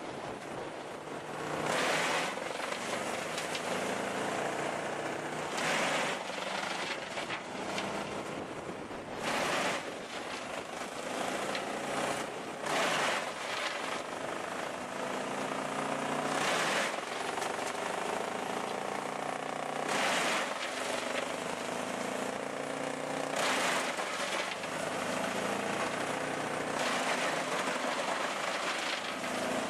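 A machine's engine running steadily, with loud noisy bursts about every three or four seconds.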